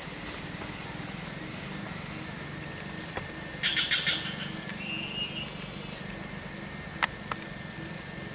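Forest ambience: a steady, high-pitched insect drone throughout, with a short burst of chirping bird calls near the middle and a single sharp click about seven seconds in.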